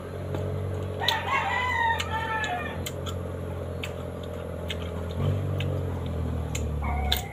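A rooster crows once, about a second in, a call of nearly two seconds that ends on a falling note; a second crow begins near the end. Short crunching clicks from bites of raw green mango and a steady low hum run underneath.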